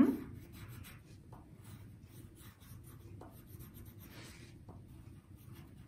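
Pencils scratching quietly on thick drawing paper in short strokes as two people draw.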